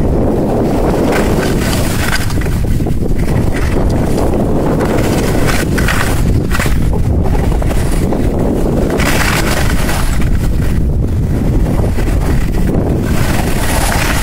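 Wind buffeting the microphone of a skier moving downhill, a loud, steady rumble, with the hiss of skis sliding on packed snow swelling a few times.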